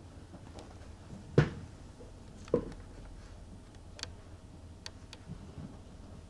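A Maine Coon kitten's paws thumping and tapping on a cardboard box as it moves about on it. There are two sharp thumps, about one and a half and two and a half seconds in, followed by a few faint ticks.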